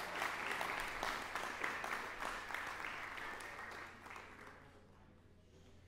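Audience applauding, the clapping thinning out and dying away about four and a half seconds in.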